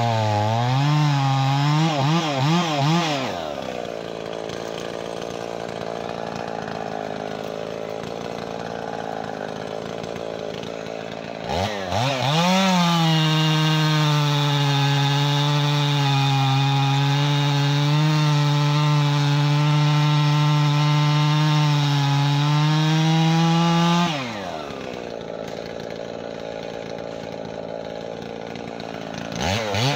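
Two-stroke chainsaw cutting a log at full throttle, its pitch wavering under load, then dropping to idle about 3 seconds in. It revs back up for a long steady cut of about twelve seconds, falls back to idle, and revs up again just before the end.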